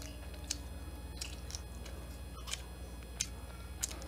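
Shell of a cooked garlic buttered shrimp cracking as it is peeled by hand: about half a dozen short, sharp crackles scattered over the seconds.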